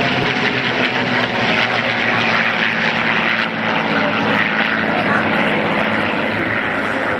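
Piston engines of two P-51 Mustangs and a P-47 Thunderbolt flying past in formation: a steady aero-engine drone with propeller noise.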